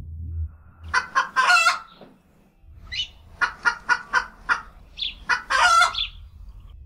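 Chicken-like clucking calls in short rapid runs, in three bunches about two seconds apart.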